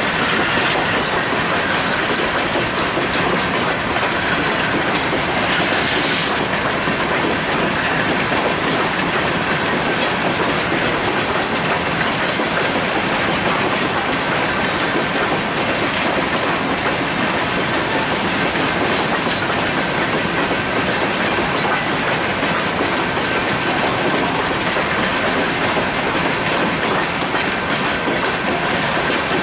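Freight train passing close by: a diesel locomotive, then covered hopper cars rolling past with a steady rumble and the clickety-clack of wheels over the rails.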